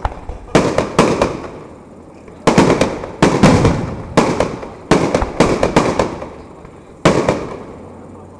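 Fireworks going off in a display: about eight sharp bangs at uneven intervals, each dying away in a crackling rumble before the next.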